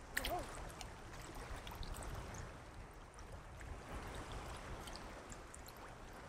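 Shallow seawater sloshing and swirling around legs wading through it, faint and fairly even, with a small splash just after the start.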